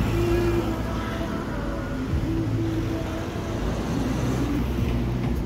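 A motor vehicle's engine running close by, a steady low drone with a held hum.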